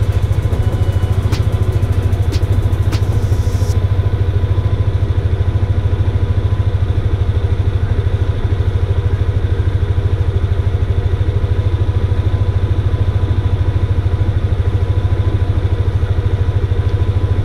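Yamaha Aerox 155 scooter's single-cylinder engine idling steadily, with a few light clicks in the first three seconds.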